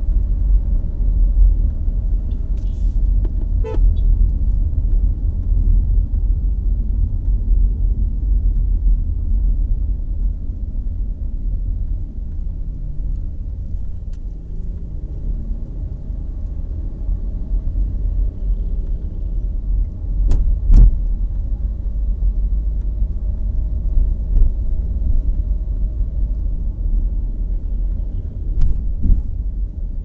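Car cabin noise while driving: a steady low rumble of engine and tyres on the road, with a few short knocks and one louder thump about twenty seconds in.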